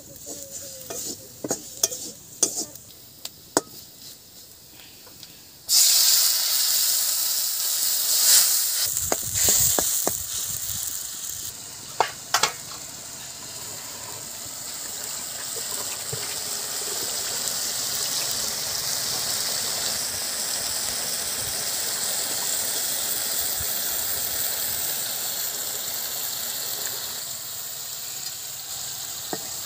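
A spatula scraping and clacking in a metal kadai of frying onions and spices, then about six seconds in a sudden loud sizzle as something wet goes into the hot pan. This settles into a steady sizzle, with a few more clacks of the spatula in between.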